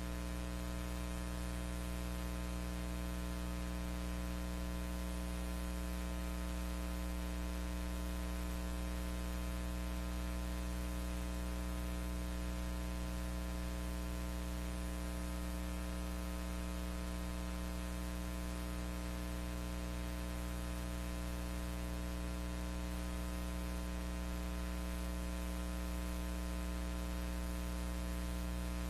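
Steady electrical hum with a stack of overtones over a constant hiss, unchanging throughout: the noise floor of a silent film transfer, with no sound from the scene itself.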